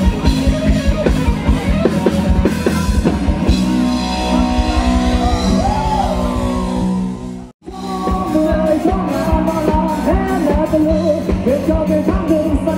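Live rock band playing with a sung vocal line over electric guitar, bass and drum kit. About seven and a half seconds in the sound cuts out abruptly for a split second, then music with singing resumes.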